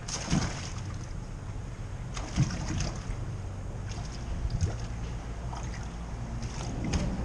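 Small waves lapping and sloshing against a boat hull, with a steady low rumble of wind on the microphone. A few short sharp knocks and clicks, the loudest about a third of a second in and about two and a half seconds in.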